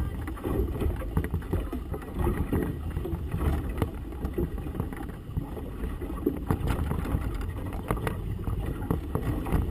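Gusty wind buffeting the microphone, with water slapping and splashing irregularly against a small motorboat's hull in choppy water.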